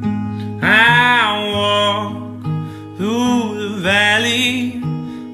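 Background music: acoustic guitar with a long, pitch-bending melody line over it in two phrases.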